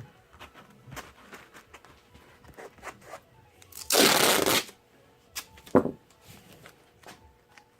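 Tape torn and pulled off a roll with one loud rip about four seconds in, among small handling clicks and rustles.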